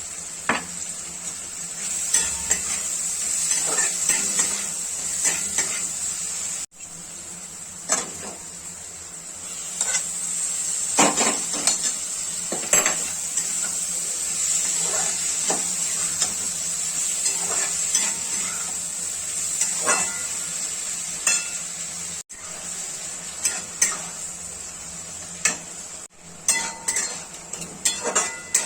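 Mushroom masala sizzling steadily in a pan while a metal spoon stirs it, scraping and clinking against the pan many times.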